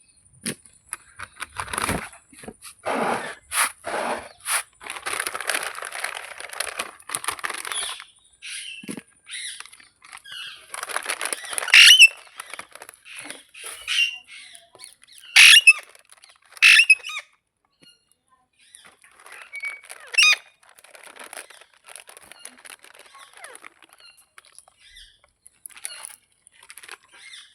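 Green parrot calling in short, sharp, shrill bursts a few seconds apart, with quieter scattered noises between them.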